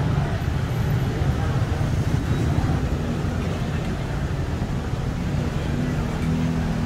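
Busy street-market ambience: a steady low hum of road traffic, with scattered voices.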